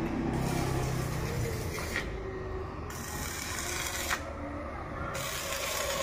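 Metalworking tool noise during steel fabrication: a steady hiss that drops away twice for about a second.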